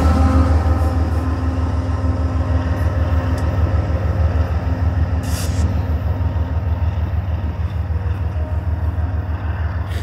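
BNSF diesel-electric locomotive passing close and moving away, its engine giving a deep, pulsing throb that slowly fades. There is a short hiss about five seconds in.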